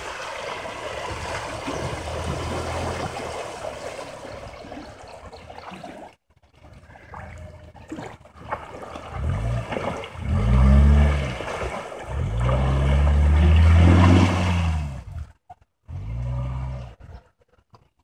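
Suzuki Jimny engine running while the SUV wades through a muddy stream, with water splashing and rushing around the wheels. From about halfway the engine revs hard in several surges, the longest near the end, as the vehicle climbs out of the water onto the bank.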